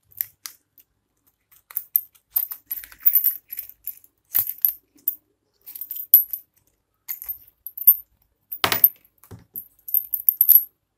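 Small metal soldering-iron tips clinking and rattling in a hard clear plastic case as it is handled and opened: a scattered run of sharp, light clicks, with one louder clack late on.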